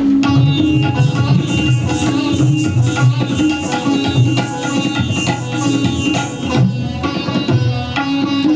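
Hindustani classical accompaniment for a kathak tarana: tabla playing a quick, steady stream of strokes over pitched melody notes.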